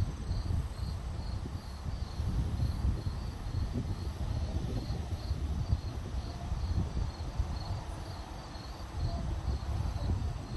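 Cricket chirping in a steady, regular high-pitched pulse, a few chirps a second, over a low, fluctuating rumble of wind on the microphone.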